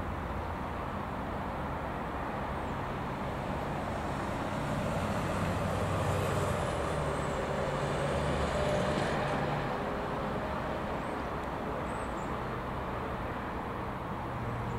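Class 60 diesel locomotive with its Mirrlees eight-cylinder engine running as it approaches slowly at the head of a loaded biomass train, a steady low drone that grows a little louder about halfway through.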